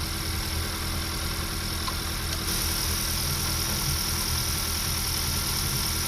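2014 Honda Accord engine idling steadily and smoothly, its cylinder 1 misfire cured by new spark plugs and an ignition coil. A higher hiss gets louder about two and a half seconds in.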